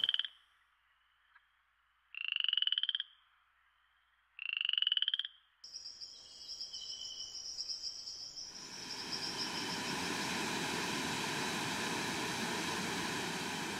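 A frog calling: short, rapidly pulsed calls that rise slightly in pitch, the last one ending just after the start and two more about two seconds apart. After a cut, a faint high thin tone and then, from about eight seconds in, the steady rush of a waterfall.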